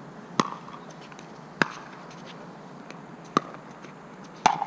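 Pickleball rally: four sharp pops, about a second or two apart, of paddles striking the hollow plastic ball.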